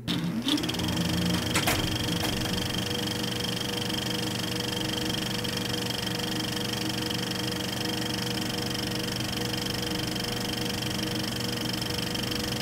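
A held drone of several steady tones from a title-sequence soundtrack, with a brief swish about a second and a half in.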